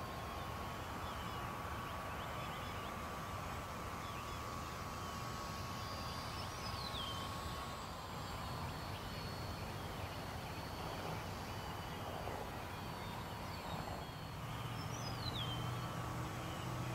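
A distant RC model airplane's motor gives a faint, steady drone that fades away about halfway through and comes back near the end. Birds chirp throughout, with two clear downward-sliding calls.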